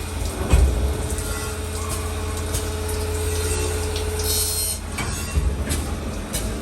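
CNC saw-blade grinding machine running as it sharpens an aluminium-cutting saw blade. There is a steady low hum, a held tone from about one second in until nearly five seconds, scattered clicks, and a short hiss just after four seconds.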